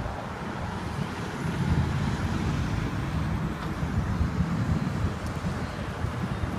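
Outdoor background noise: a steady low rumble of road traffic with wind buffeting the microphone.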